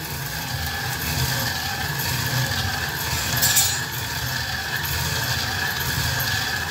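A jato, a Nepali rotary stone hand quern, being turned by its wooden handle: the upper stone grinds steadily against the fixed lower stone as grain is milled between them, with a brief louder scrape about three and a half seconds in.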